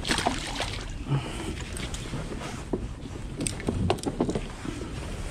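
Clicks and knocks of gear being handled on a plastic kayak, scattered irregularly over a steady low rumble.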